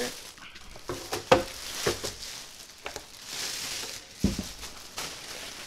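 Clear plastic packaging bag crinkling and rustling as it is pulled off a new cordless hedge trimmer, with a few sharp knocks and a dull thump just after four seconds in.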